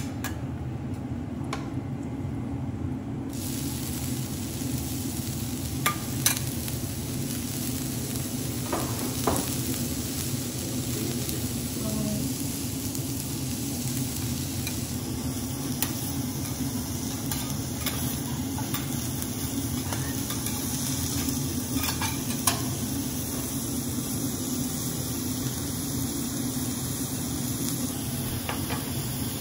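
Minced garlic, beef fat and chopped onion sizzling on a hot steel teppanyaki griddle. The sizzle gets louder and brighter about three seconds in, and a few sharp clicks of a metal spatula on the plate come through it.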